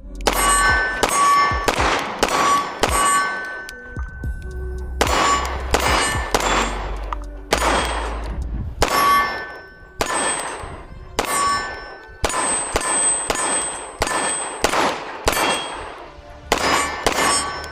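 9 mm 2011-style pistol firing a long string of shots, about two a second, each with a ringing tail, with a short pause about four seconds in.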